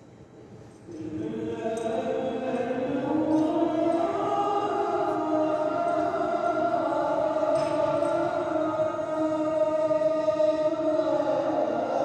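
Chanting in long, slowly gliding held notes, starting about a second in.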